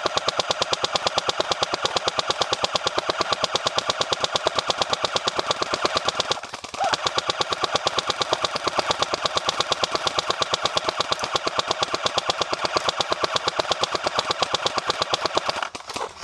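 Airsoft M60 firing long full-auto strings: a rapid, even clatter of shots with a brief half-second break about six seconds in, stopping just before the end.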